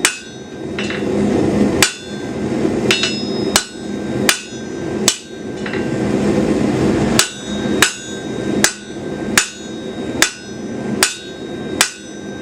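A blacksmith's hammer, used on its flat face, strikes hot steel on an anvil to taper the bar to a tip. The blows come about every 0.7 s, each with a bright metallic ring, with a pause of about two seconds near the middle. A steady rushing noise runs underneath.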